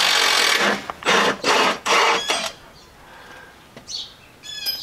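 Small cordless power tool, such as a stubby impact wrench or ratchet, whirring in one burst of about a second and then four short trigger blips, with a few brief high squeaks near the end.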